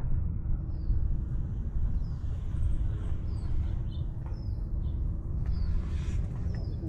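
Steady low rumble of wind and rubbing on a collar-worn camera microphone, with a bird repeating a short high falling chirp about once a second.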